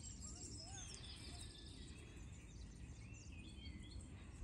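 Several songbirds chirping and warbling, with a rapid run of notes about a second in and more song near the end, over a low steady background rumble.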